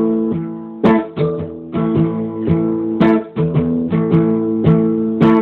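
Acoustic guitar strummed chords in a steady rhythm, roughly two strokes a second, in an instrumental gap of a reggae song.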